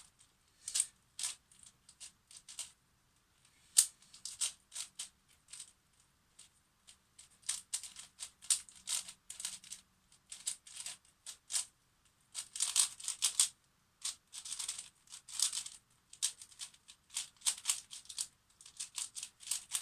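MoYu MeiLong 5x5 plastic speedcube being turned fast during a solve: clusters of quick clicking turns broken by short pauses.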